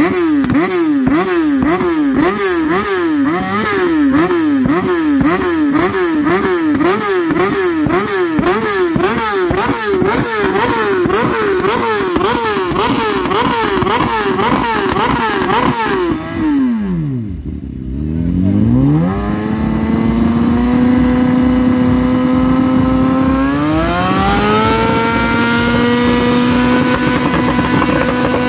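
BMW S1000RR HP4's inline-four engine revved hard on a stationary bike: quick throttle blips about twice a second for the first half, the exhaust spitting flames. The revs then drop, climb to a held high rev, and step up to a higher held rev before falling away at the end.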